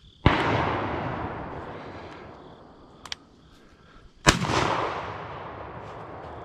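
Two close shotgun shots about four seconds apart, each followed by a long echo rolling away over a couple of seconds.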